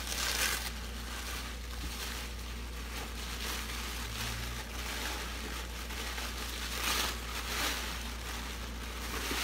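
Tissue paper crinkling and rustling as hands pull and fold it, with louder crinkles near the start and twice about two-thirds of the way through.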